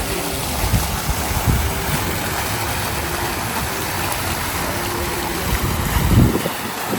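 Wind buffeting the microphone in uneven low gusts, strongest near the end, over a steady hiss of rain.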